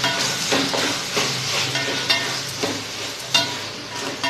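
Wooden spatula stirring and scraping mint and coriander leaves through a sizzling onion-tomato masala in a metal pot, about two strokes a second, with one sharper knock about three seconds in.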